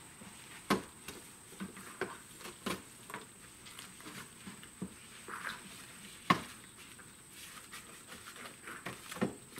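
Hands and a scrub brush working foam over the plastic body and roll cage of a Can-Am Maverick Sport side-by-side, making irregular scuffs and knocks. The sharpest knock comes about six seconds in.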